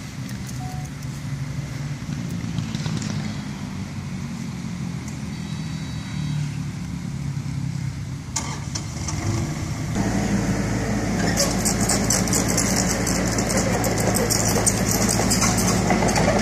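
Kubota mini excavator's diesel engine idling, then rising to higher revs about ten seconds in as the machine starts working, with a fast clattering rattle joining in soon after.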